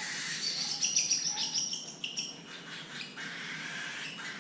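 Small pet parrot chirping: a quick run of short, high calls in the first half, then quieter.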